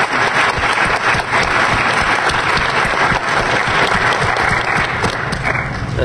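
Large audience applauding, a dense steady clapping that thins out near the end.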